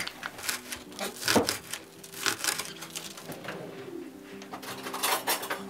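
Kitchen sounds of cooking: an egg cracked against a plastic mixing bowl, then a spoon clicking and scraping as filling is spread on dough. Low, steady sustained tones run underneath.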